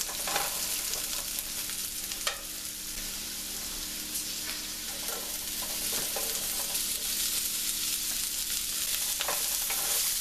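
Potatoes and freshly added onions sizzling in butter in a cast iron skillet, with occasional clicks and scrapes of a utensil stirring them. A faint steady hum runs underneath.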